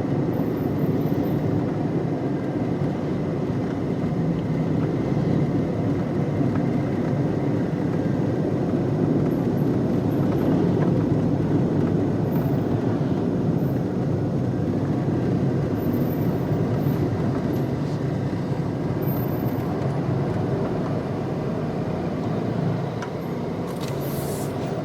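Car driving along steadily: a continuous engine and road rumble that eases slightly near the end.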